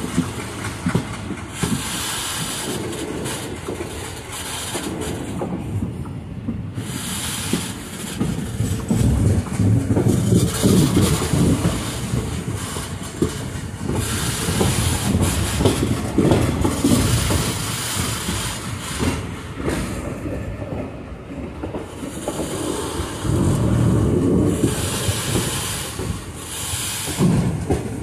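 Passenger train running along the track: wheels clattering over the rails with a steady rumble and rush of air, the noise swelling and easing several times.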